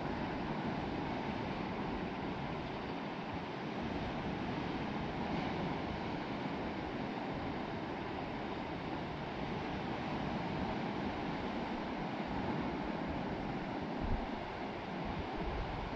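Sea waves washing and breaking on the shore in a steady rush, with wind buffeting the microphone in low gusts about fourteen seconds in and near the end.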